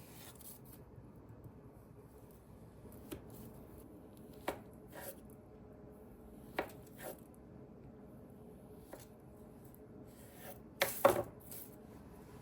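Kitchen work: scattered light taps and knocks of utensils, with a louder cluster of knocks about eleven seconds in.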